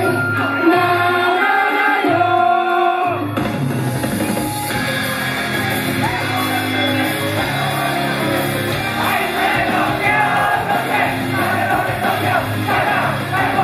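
Idol pop song played at double speed over a live sound system, with fast sung melody and crowd shouting along. The mix turns denser and fuller about three seconds in.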